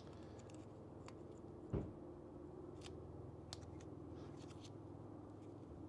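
Quiet workshop with a steady low hum, a few faint light clicks and one soft knock about two seconds in, from the glued metal plate being handled and pressed down on the mill table.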